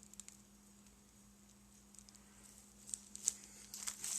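Small plastic bags of 3D-printed model parts crinkling and crackling as they are handled, sparse at first and busier with sharp crackles in the last second or so.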